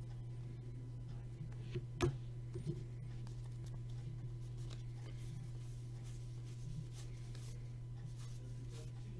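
Trading cards being handled and slid against each other: faint rubbing and rustling with a sharp click about two seconds in, over a steady low hum.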